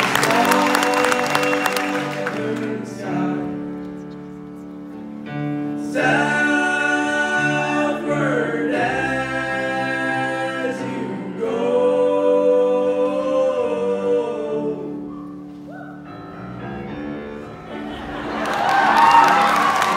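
A group of boys' voices singing together in harmony, with low held notes beneath the higher parts. The audience cheers and applauds in the first couple of seconds and again near the end.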